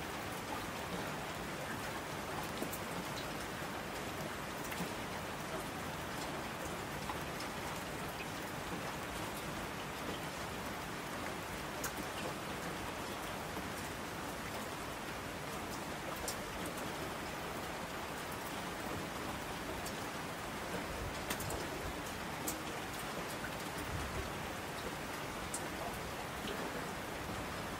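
Steady rain falling, with occasional sharper drop ticks.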